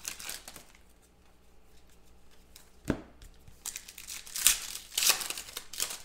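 Foil wrapper of a Contenders football card pack being torn open and crinkled in the hands, in bursts at the start and again in the last couple of seconds, with a single thump about three seconds in.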